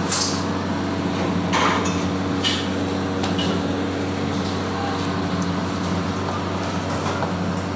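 Steady hum of kitchen machinery with several held low tones, broken by a few short clicks in the first half.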